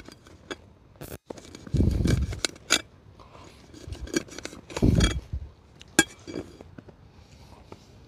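Camp cooking utensils being handled: irregular small clicks, clinks and scrapes. There are two louder dull thumps about two and five seconds in, and a sharp click about six seconds in.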